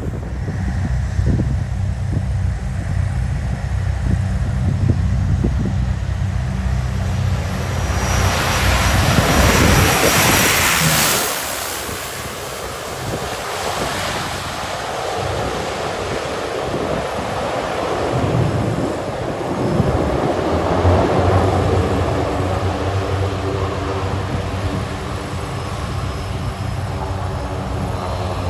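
Strong wind buffeting the microphone, then a small propeller aircraft passing close on arrival, loudest about ten seconds in with a falling whoosh, its engine sound trailing off under further wind gusts.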